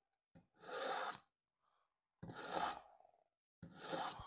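A dull kitchen knife blade pulled through a Smith's mini pull-through sharpener three times. Each pass is a short rasping scrape of steel on the sharpening slot, spaced about a second and a half apart.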